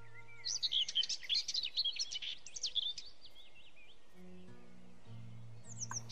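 Birds chirping, a quick run of high twittering calls lasting about two and a half seconds, with a few more chirps near the end, over soft background music of sustained low notes.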